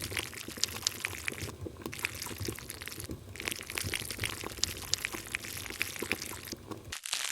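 Thick chocolate mixture of condensed milk and cocoa being poured, a steady wet pour with many small sticky clicks.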